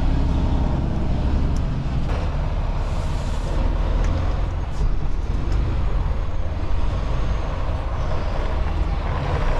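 Semi truck's diesel engine running at low speed while manoeuvring, a steady low rumble.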